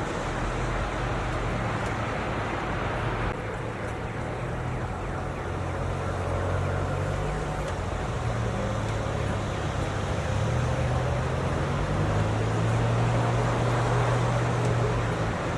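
Snowstorm ambience: a steady wash of wind noise with a low hum underneath.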